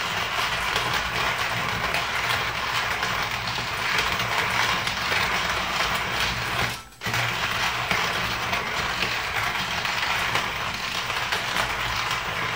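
Hario Slim hand coffee grinder being cranked, its ceramic conical burrs crushing coffee beans at a coarse setting with a continuous gritty crunching and rattle. There is a brief break in the cranking about seven seconds in.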